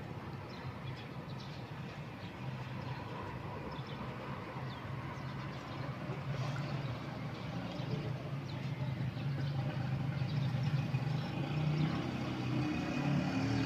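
A vehicle engine running with a steady low hum, growing louder toward the end.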